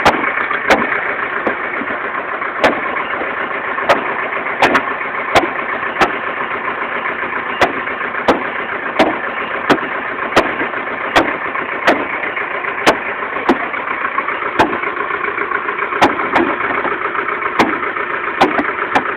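An engine idling steadily, with sharp knocks repeating at an irregular pace, roughly one every half second to a second.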